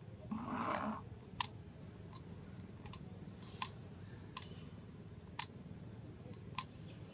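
About a dozen sharp, scattered clicks from a baby macaque biting and chewing lotus seeds, with a brief rustle about half a second in.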